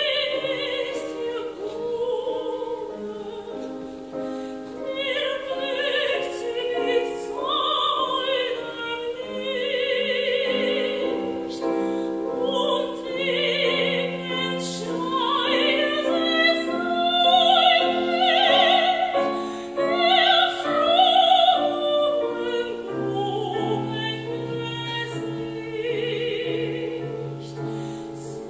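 A woman singing classically in operatic style, with a wide vibrato, accompanied by a grand piano; her voice is at its loudest a little past the middle.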